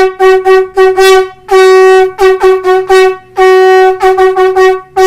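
Conch shell (shankh) blown at one steady pitch in a tongued rhythm: a held note followed by a quick run of four or five short notes, the group played three times.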